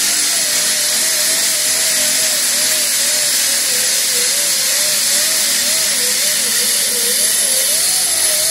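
Air-powered disc sander with a 36-grit disc spinning at about 5,000 RPM, grinding old paint and body filler off a steel car door. A loud, steady hiss carries a whine whose pitch wavers up and down as the tilted disc is pushed back and forth and the load changes.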